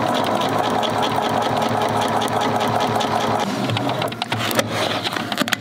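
Domestic electric sewing machine stitching rapidly through fabric, the needle running at an even fast pace, then stopping about four seconds in, followed by a couple of sharp clicks.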